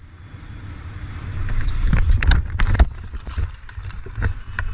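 Vehicle on the move heard through a dashcam microphone: a steady low road rumble with wind noise, broken by a cluster of sharp knocks about two seconds in and a few more near the end.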